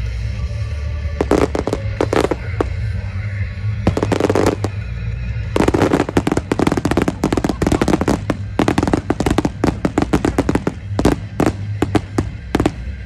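Fireworks display: aerial shells bursting and crackling, a few scattered reports at first, then a dense run of rapid bangs and crackles through the second half, over loud music.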